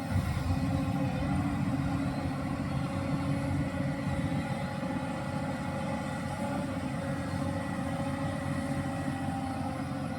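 Hyundai R215L SMART X Plus hydraulic excavator's diesel engine running steadily as the machine works, with a low rumble.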